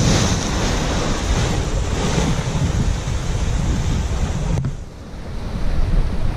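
Sea swell surging and breaking in foam against the foot of a rock cliff, with wind buffeting the microphone. About four and a half seconds in the sound drops abruptly and comes back up a second later.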